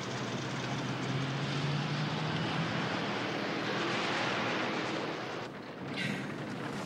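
A car driving by: a low engine hum and tyre noise on the road swell as it passes, then drop away, with a brief hiss near the end.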